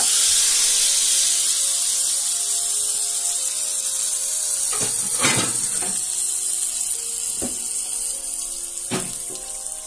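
Hot oil tempering of mustard seeds, urad dal and a dried red chilli sizzling on wet green chutney: a loud hiss that slowly dies away. A few short knocks come about halfway and near the end.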